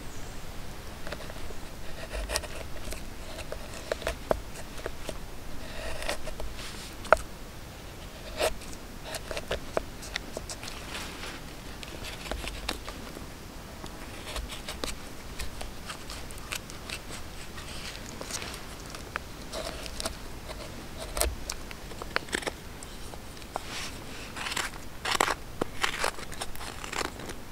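Carving tools cutting wood as a wooden spoon is carved: a gouge and a knife slicing and scraping shavings from the bowl in short, irregular strokes, coming thicker near the end.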